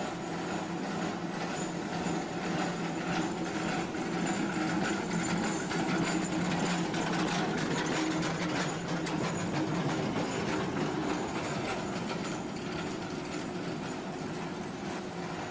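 Vintage electric streetcar rolling past on street track: a steady low hum under a dense rattle of steel wheels on the rails. It grows louder to a peak about six to eight seconds in, as the car passes close, then eases off.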